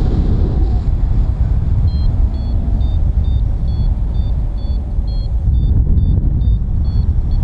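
Wind buffeting the microphone in flight, a heavy low rumble, with a free-flight variometer beeping about twice a second from about two seconds in: its climb tone, the sign of rising air.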